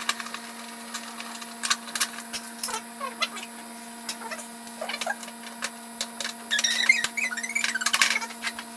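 Scattered clicks, taps and a few short squeaks of hands and tools working on a motorcycle, over a steady hum. The squeaks come in a cluster near the end.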